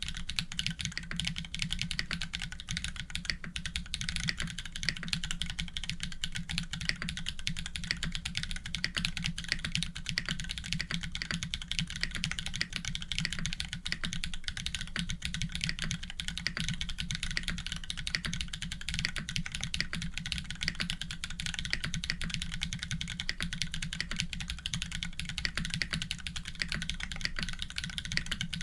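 Fast, continuous typing on a custom mechanical keyboard with Holy Panda tactile switches, an FR4 plate and GMK keycaps: a dense, steady run of keystroke clacks.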